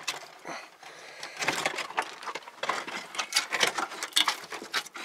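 A buck and a doe rabbit scuffling and scrabbling on the wooden floor of a hutch, with a hand among them: a rapid, irregular run of claw scratches, knocks and rustles on the boards.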